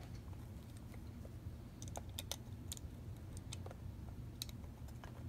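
Scattered small clicks and taps of a screwdriver and small metal parts as screws are driven to fit a new fuel gauge into a 1969 VW Beetle speedometer. The clicks come mostly from about two seconds in, over a steady low hum.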